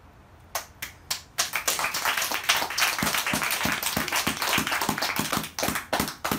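Hand clapping: a few separate claps, then a burst of dense clapping that thins back into single claps at about three a second near the end.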